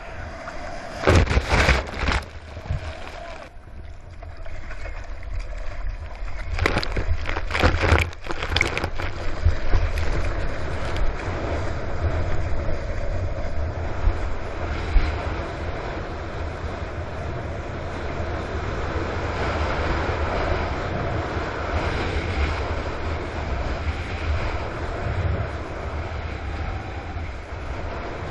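Water slaps over a board-mounted camera in the first few seconds and again around eight seconds in. After that comes a steady rush of water and wind with a low drone, as a Wavejet-powered surfboard skims across flat water.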